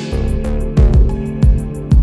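Background music with a steady beat, with plucked guitar and held tones over regular kick-drum thumps.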